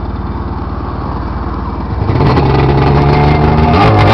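Rotax two-stroke engine of a 1997 Sea-Doo GS jet ski idling with a fast, even putter. About two seconds in, it gets louder and fuller.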